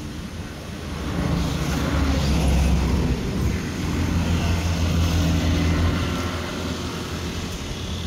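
Low, steady engine hum of a motor vehicle going by, swelling about a second in and easing off toward the end.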